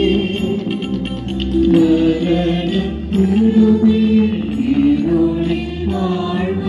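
Music of slow chanted singing, a devotional melody with long held notes.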